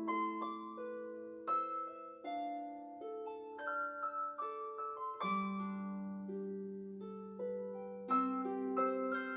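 Solo pedal or lever harp, a Blevins 38-string, playing a gentle melody of plucked notes that ring on and overlap over sustained lower notes, with a deeper bass note entering about five seconds in.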